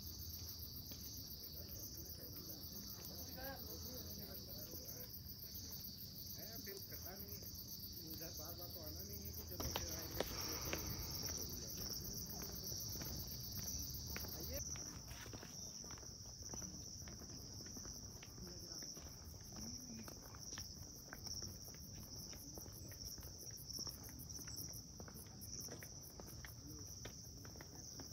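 Insects trilling in a steady, high-pitched continuous drone, its pitch shifting slightly about halfway through.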